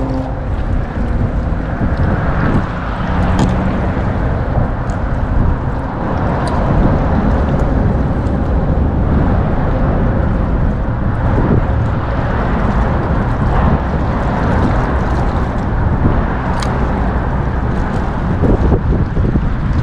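Wind buffeting the microphone out on open water: a loud, steady rumbling rush that rises and falls, with now and then a light click.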